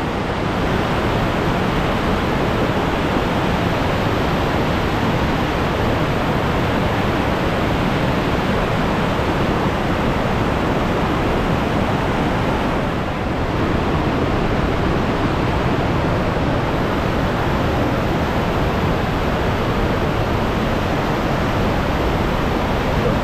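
Gordale Scar's waterfall: a steady, very loud rush of falling water, dipping slightly for a moment a little over halfway through.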